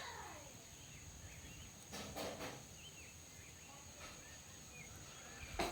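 Quiet outdoor background with small birds chirping now and then and a faint insect hum. There are two brief handling noises about two seconds in and another just before the end.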